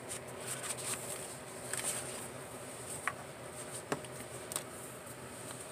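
Quiet handling of paper cards and a stamp on a wooden desk: light rustling and a few soft clicks and taps, the sharpest about three and four seconds in, over a faint steady hum.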